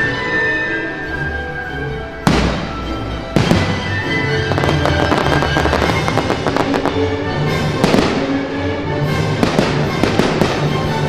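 Aerial fireworks bursting over continuous orchestral show music. There are sharp bangs about two seconds and three and a half seconds in, then a dense run of crackling from about four and a half seconds on, another bang near eight seconds, and more crackling after that.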